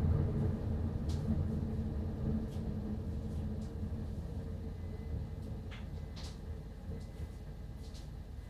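Low rumble of a missile explosion rolling on and fading slowly away, with a few faint short high chirps on top.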